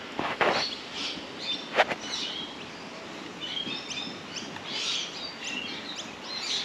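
Small birds chirping, with short high tweets that cluster in the second half, over a faint steady outdoor background. Two brief noisy sounds come about half a second and two seconds in.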